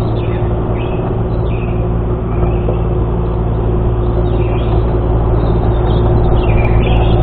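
Excavator's diesel engine running steadily, with short high squeaks scattered over it.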